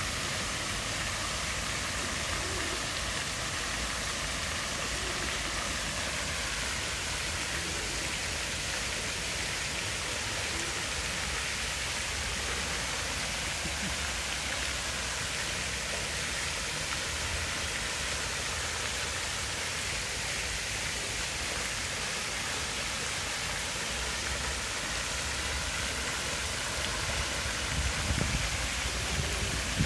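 Water jets of a park fountain spraying and falling back into the pool: a steady splashing hiss much like rain.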